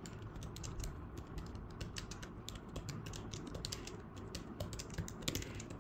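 Keys on the physical keyboard attached to a Huawei MatePad Pro 13.2 tablet, typed slowly: a steady run of faint key clicks.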